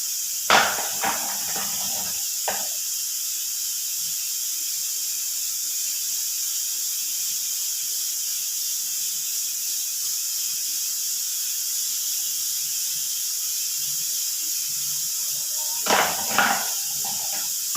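A dry brush scraping against a hard naphthalene mothball in two short clusters of strokes, near the start and near the end, over a steady high hiss. The ball is too hard for the bristles to wear down.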